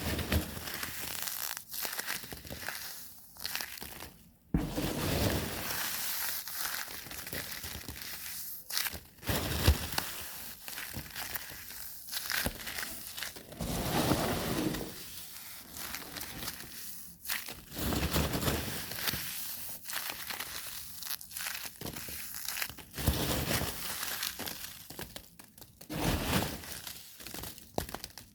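Crinkling and crushing noises in irregular bursts of a second or two, with short pauses between them.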